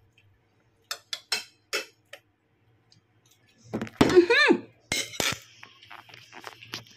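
Metal cutlery clinking against ceramic dinner plates, a few light clinks about a second in. About four seconds in comes a short voice-like sound with a wavering pitch, the loudest thing, followed by a couple of sharp knocks and more scattered clinks.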